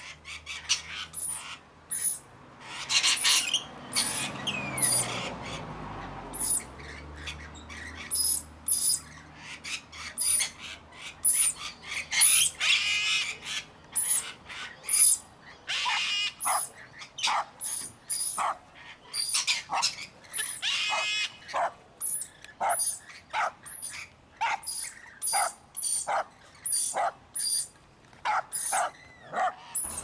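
Parrots squawking: a rapid run of short, harsh calls, with a few longer rasping screeches among them.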